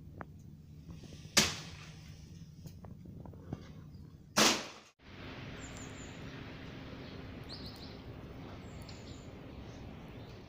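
Broken pieces of corrugated asbestos-cement roofing sheet thrown from a roof crash onto the ground twice, about three seconds apart, the second crash a little longer. After that comes steady outdoor background with a few faint bird chirps.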